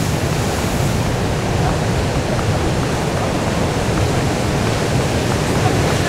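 Rough sea with wind: a steady, dense rush of breaking surf.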